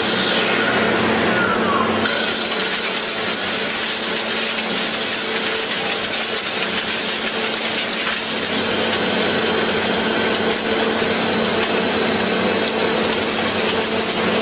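CNC machine tool running: a steady hum under a loud, even hiss, with a brief sliding whine in the first couple of seconds.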